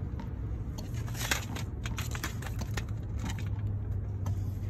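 Gray squirrel gnawing and cracking open peanut shells: irregular crisp crackles and clicks over a low steady hum.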